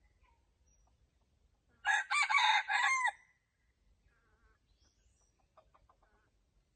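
Rooster crowing once, a single crow of just over a second that drops in pitch at its end, followed by a few faint short calls.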